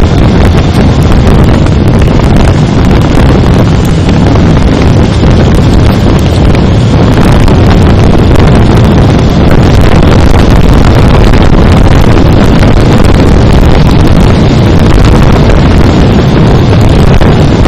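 Loud, steady wind buffeting on the microphone of a camera on a moving motorcycle at road speed, with the Honda CB400's engine running underneath.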